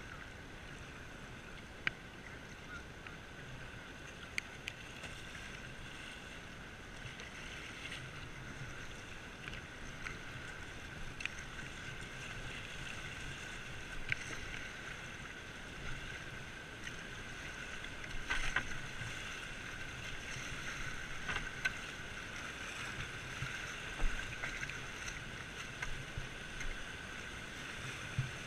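Whitewater rapids rushing steadily past a kayak, heard from on board, with scattered sharp ticks and knocks. The water grows a little louder through the second half.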